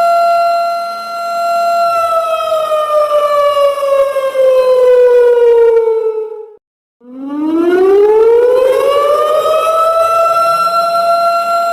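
Siren sound effect: a steady wailing tone that holds, then slowly glides down in pitch. About halfway through it cuts out for a moment, then rises back up and holds steady again.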